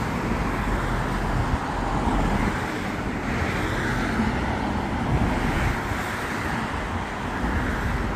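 Steady road traffic on the bridge: cars and trucks driving past close by, a continuous rush of tyres and engines.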